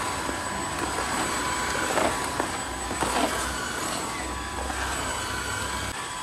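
Cordless wet floor vacuum running steadily over a wooden floor: a steady whirring hiss with a faint whine, and a few light knocks around the middle.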